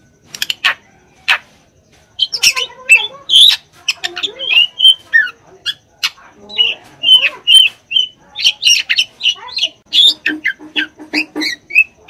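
Drongo singing a rapid, varied song of sharp clicks and short whistled notes. After a near-pause in the first two seconds, the song runs on without a break.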